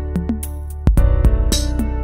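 Background music with a steady beat over a deep bass line; a new bass note comes in about a second in.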